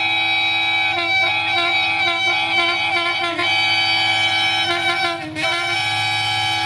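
Locomotive air horn giving one long, loud two-tone blast that wavers in pitch and dips briefly a couple of times, as the engineer plays the horn.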